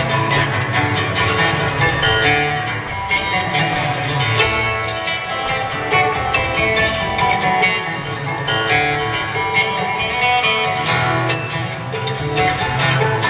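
Acoustic string band playing live: mandolin, fiddle, banjo, guitar and double bass, with quick picked notes over a steady bass line.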